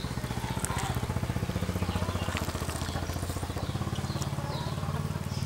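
A small engine running with a fast, even throb; its pitch steps up about four seconds in.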